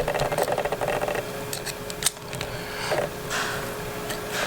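Small sharp clicks of tools and parts handled during an iPhone 5 teardown, with a fast rattle in the first second, over a steady hum.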